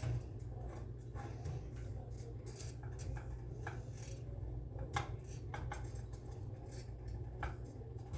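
A spoon scraping and clinking against a pot as boiling macaroni is stirred, in short irregular knocks over a steady low hum.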